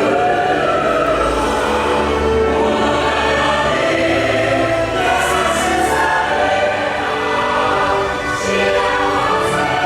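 Music with a choir singing sustained chords.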